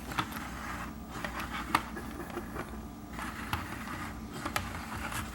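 Remote-control BB-8 droid toy moving in response to a voice command: faint mechanical scraping and scattered clicks from its drive.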